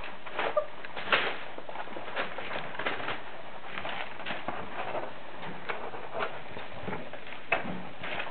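Border collie puppies scrambling about on tiles and newspaper: irregular claw taps and paper rustling, with a few short whimpers.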